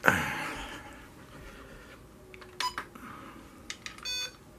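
A sharp plastic clack, then a few light clicks and a short electronic beep about four seconds in: a Carrera Digital 132 slot-car set being handled while a new car is coded to a controller.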